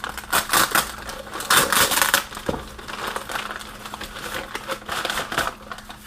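Packaging being opened and handled by hand, with irregular crinkling and crackling throughout, busiest in the first half.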